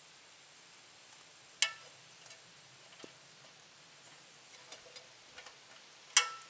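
Two sharp metallic clicks with a short ring, about a second and a half in and again near the end, with a few fainter ticks between: a solar street light's metal fixture and mounting arm being handled and adjusted.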